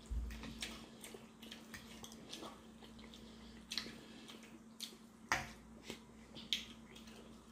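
Faint eating sounds: soft chewing and mouth smacks with scattered sharp clicks, the sharpest about five seconds in, over a low steady hum.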